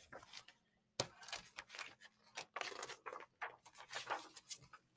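Faint paper rustling with irregular light clicks and taps as a picture book's pages are turned and handled.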